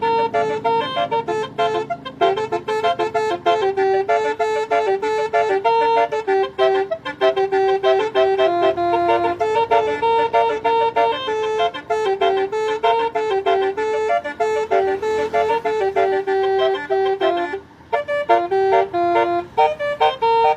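Bus basuri (telolet) horn playing a melody of quick, buzzy notes, with a short break about eighteen seconds in.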